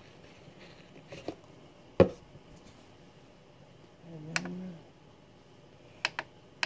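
Scattered clicks and taps of a finger pressing the buttons of a digital kitchen scale with a glass blender jar on it. The loudest is a single sharp knock about two seconds in, a short muffled sound comes around four seconds in, and a quick pair of clicks comes near the end.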